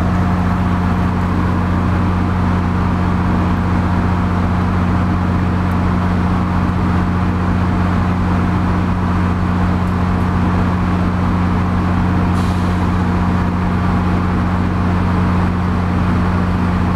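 Diesel commuter-rail locomotive engine idling at a standstill: a loud, steady low hum of two deep tones, heard from inside a passenger coach.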